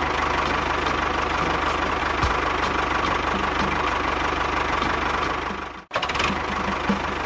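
Tractor engine running steadily with a fast, even knocking beat. About six seconds in it drops out for a moment, then resumes.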